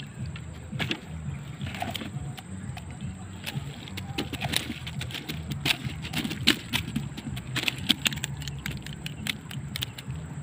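A mesh keep net full of live river prawns being handled in a wooden boat: a run of irregular clicks and rattles over a steady low hum.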